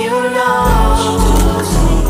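Background music: a song with a sung vocal melody, joined about half a second in by deep, pulsing bass notes.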